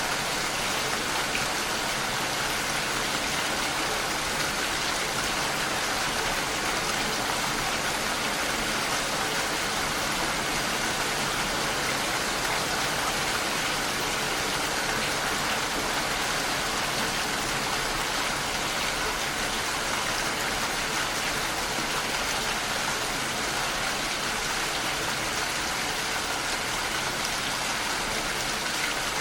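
Steady heavy rainfall, an even unbroken hiss of rain with no distinct drops standing out.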